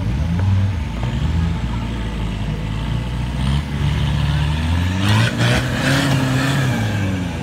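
Engine of a 4x4 trial buggy working under load on a climb, revs wavering, then rising sharply about five seconds in and dropping back near the end, with a rush of noise while the revs are highest.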